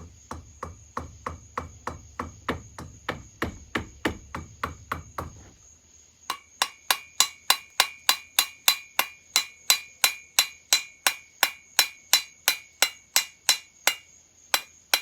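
Repeated hammer taps, about three a second, on a stuck part of a chainsaw being knocked loose during teardown. The first run of blows is duller; after a short pause about six seconds in, a second, louder run rings metallically.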